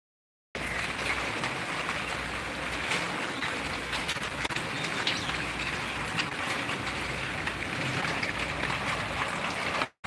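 Steady rain falling and pattering on surfaces, a constant hiss with scattered drop ticks. It starts suddenly about half a second in and breaks off at the very end.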